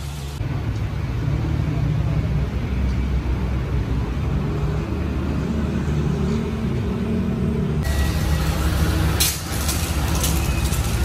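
A motor's low, steady drone. About eight seconds in, a pressure-washer jet starts spraying, hissing and spattering on the car's body.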